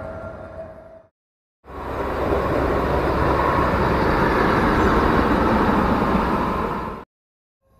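A passing train fades out and cuts off. After a short gap, a train hauled by a locomotive rumbles steadily across a bridge overhead for about five seconds, then cuts off abruptly.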